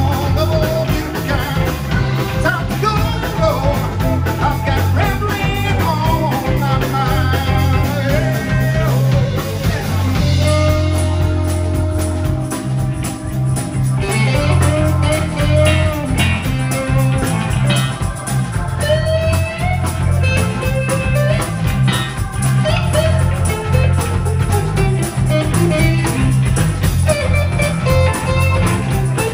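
Live southern rock band playing: electric guitars over a stepping bass line and drums, with a man singing lead.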